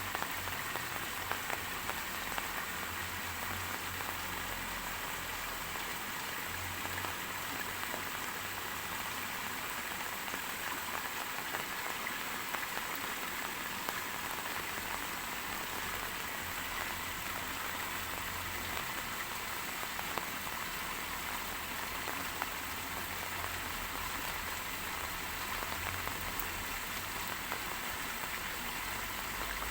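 Steady rain falling, a dense even hiss of drops with scattered single drops ticking out above it.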